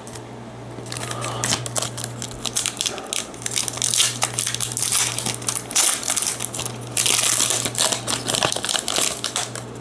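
Foil wrapper of a Pokémon booster pack crinkling and crackling as it is handled and torn open, busiest and loudest in the last few seconds.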